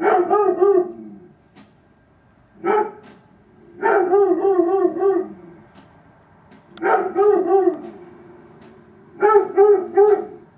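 Dog barking repeatedly in quick runs of three to five pitched barks, a new run starting every one to three seconds.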